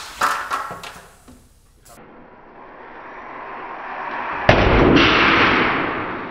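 A counterfeit AGV helmet on a metal headform strikes the anvil in an ECE helmet drop test. A few light knocks come first, then a rising rush of noise builds to a sharp bang about four and a half seconds in, followed by a loud rumbling decay.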